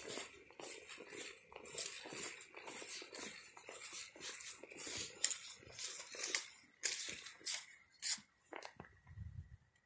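Footsteps crunching through dry, dormant grass and fallen leaves at a walking pace, about two steps a second, dying away near the end as the walker reaches concrete.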